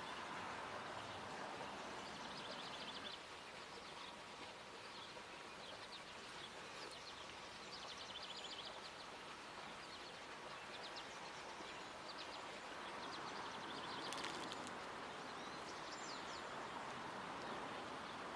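Outdoor garden ambience: a steady background hiss with small birds chirping in short, rapid high trills every second or two. A single sharp click comes about fourteen seconds in.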